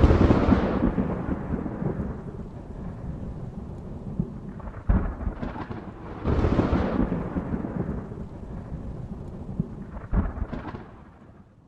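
Thunder: a loud clap at the start that rolls away, a sharp crack about five seconds in, a heavier rumble a second later, and another crack near the end before it fades out.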